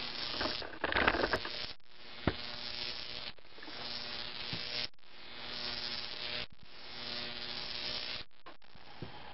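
High-voltage arc of a 15,000-volt Jacob's ladder buzzing and crackling as it climbs two wires. It breaks off and re-strikes about every one and a half seconds. There is a louder crackle about a second in and a sharp snap a little after two seconds, and it goes quieter and steadier after about eight seconds.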